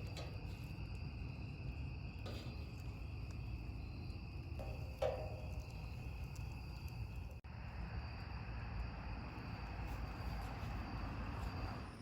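Crickets chirping in a steady high trill over a low, even rumble, with a few faint snaps.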